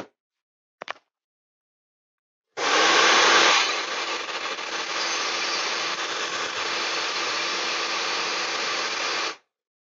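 Hot-air rework gun blowing over an iPhone 6 logic board: a steady rush of air over a constant fan hum. It switches on about two and a half seconds in, is loudest for the first second, and cuts off sharply about nine seconds in.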